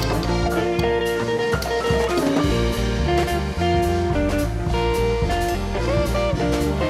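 Instrumental background music with guitar and a steady drum beat.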